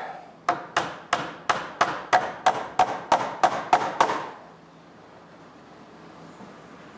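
Hand hammer driving a nail into a pine window extension jamb: a quick, even run of about a dozen sharp strikes, about three a second, that stops about four seconds in.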